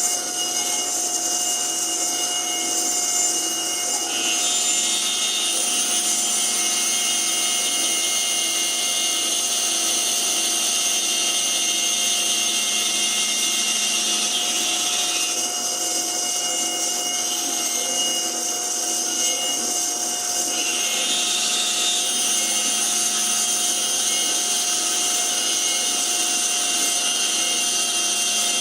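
Small CNC milling spindle running with its cutter working a wooden ring insert: a steady whine over hiss, its tone changing slightly about four seconds in and again between about 15 and 21 seconds in.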